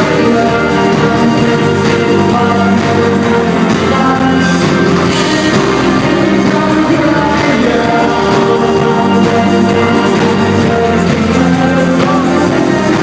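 Live electronic rock band playing loud, with singing over synths, drums and bass.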